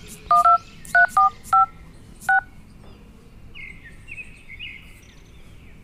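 Smartphone dialer touch-tone keypad beeps: six short DTMF beeps as the digits 1, 2, 3, 4, 5, 6 are keyed in. They come in quick, uneven succession over about two seconds, the last one a little apart from the rest.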